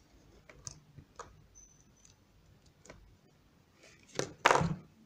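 Handling noise from a vape mod and atomizer held in the hand: a few faint clicks and taps, then a louder brief rustling knock about four and a half seconds in.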